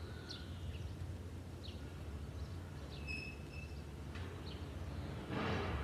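Outdoor ambience: small birds chirping now and then, with one short whistled note about three seconds in, over a low steady rumble. A brief rush of noise comes near the end and is the loudest sound.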